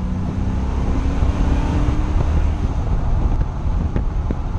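1970 Plymouth GTX's 440 Six Pack V8 running under way, heard from inside the cabin with wind noise and a deep rumble. The engine note rises for about two seconds, then eases off.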